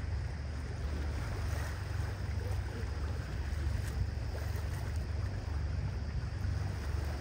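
Tour boat under way: a steady low engine drone with water rushing past and wind on the microphone.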